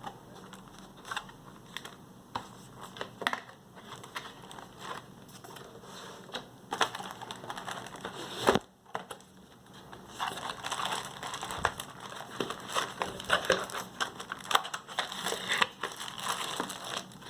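Crinkling and crumpling of keyboard packaging being handled and unwrapped, with scattered small clicks and knocks; the rustling gets busier and louder about ten seconds in.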